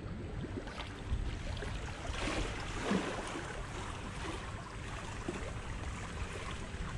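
Pool water splashing and lapping as a swimmer's strokes churn the surface close by, with a louder splash about two to three seconds in.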